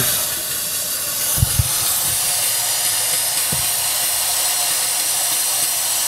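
Compressed air hissing steadily out of a leak in the Ford 6.0 L Power Stroke's high-pressure oil system, pressurized through the IPR valve port for an air test. The mechanic traces the hiss to a leaking rear high-pressure oil standpipe. A couple of soft knocks are also heard.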